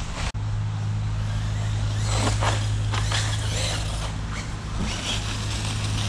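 FTX Carnage RC monster truck with a brushless motor and a metal spur gear, driving over leaf-covered grass. Its motor and gears whine in short bursts that rise and fall in pitch with the throttle, mostly between about two and four seconds in.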